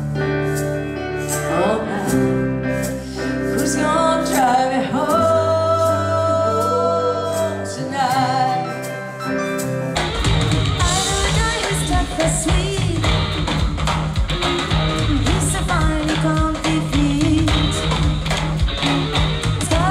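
Live concert music: a female singer's slow ballad over acoustic guitar and held chords. About halfway it cuts abruptly to a full rock band playing loud, with drum kit, electric guitar and a female lead singer.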